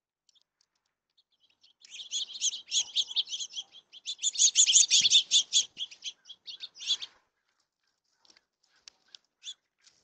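Small songbirds chirping and chattering in a fast, dense run of high notes that builds for about five seconds and is loudest midway, then breaks off into a few scattered single chirps.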